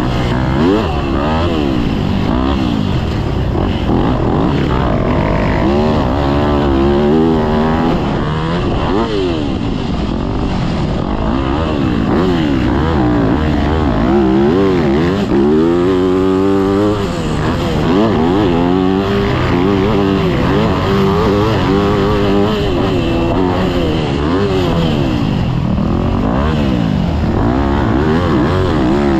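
Motocross dirt bike engine heard on board while riding, its pitch rising and falling every couple of seconds as the throttle opens and closes and the gears change.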